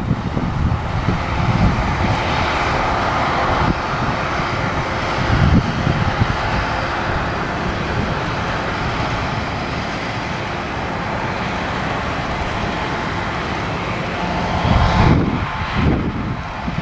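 New Holland combine harvester running steadily under load while harvesting oilseed rape, a constant engine and threshing drone. Wind buffets the microphone in gusts at the start and again near the end.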